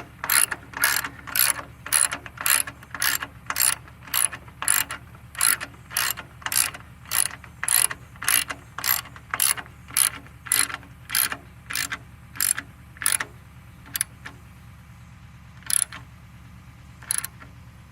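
Ratchet wrench clicking as it is worked on a fastener, an even run of about two and a half clicks a second. The clicking stops about 13 seconds in, with two lone clicks after that.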